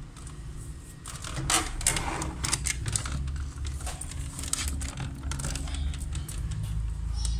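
Irregular clicks and light knocks of cables and plastic being handled behind a computer monitor, over a low rumble from the phone being handled.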